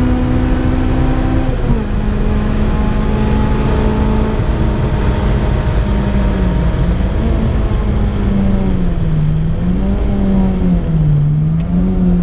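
Supercharged Honda K20 four-cylinder in a Civic run hard on track, heard from inside the cabin. Its note holds high, drops a step about 1.5 s in, then from about 6 s rises and falls again and again as the revs change through the corners.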